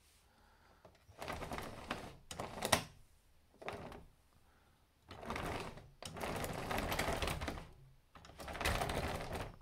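Tracks of a 1/50 NZG Komatsu PC4000 diecast model excavator clattering across a smooth tabletop as the model is pushed back and forth, in four bursts of rapid clicking. The tracks drag rather than roll freely because the table gives them too little grip.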